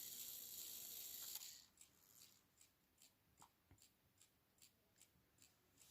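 Hermle mantel clock's chime rods ringing out with several held tones after the bim-bam strike. The ringing cuts off suddenly about a second and a half in. Then the movement's soft, even ticking follows, about two and a half ticks a second.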